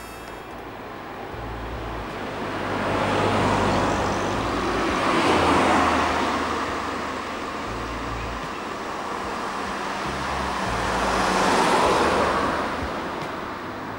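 Cars passing on a road, the tyre and engine noise swelling as each car approaches and fading as it goes. The two loudest pass-bys come about five seconds in and near the end.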